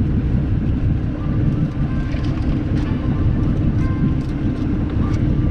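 Fishing boat's engines running with a steady low rumble.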